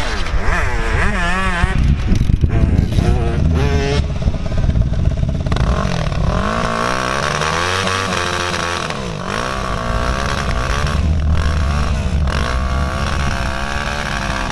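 Dirt bike engine revving up and down in quick repeated blips while the bike stands, over a steady low rumble.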